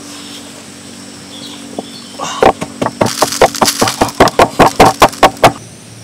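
Stone pestle pounding in a stone mortar: a quick run of about fifteen sharp knocks, about five a second, starting about two seconds in and stopping just before the end.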